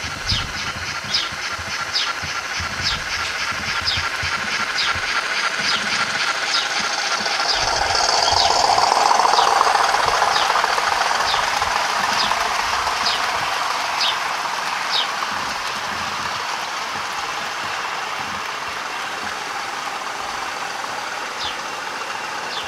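OO gauge model trains running: the rumble of wheels and motor grows louder as a train passes close, about eight to eleven seconds in. Over it runs a regular series of short high ticks, roughly one a second.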